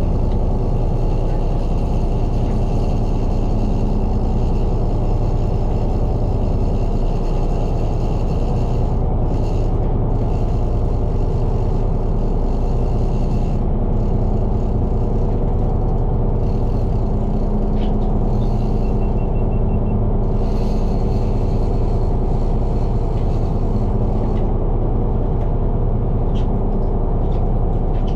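Sportfishing boat's engine running steadily, a low, even rumble.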